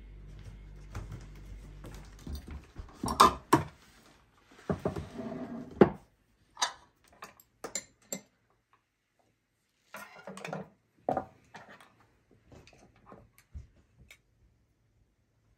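Tableware being handled on a wooden table: scattered clinks, taps and knocks of dishes, jars and cutlery being set down and picked up, loudest a few seconds in.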